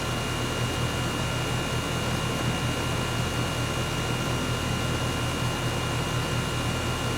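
Steady low drone with a hiss over it, unchanging throughout, with a few faint steady tones above it.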